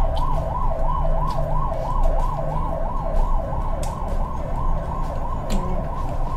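Emergency-vehicle siren in a fast yelp, its pitch sweeping up and down about three times a second over a low rumble. A few faint clicks of chewing come through on top.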